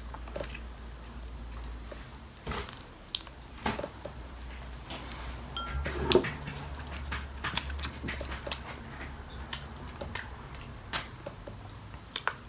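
Crawfish and shrimp being peeled and eaten: scattered sharp cracks and clicks of shells breaking, with wet chewing and smacking, over a low steady hum.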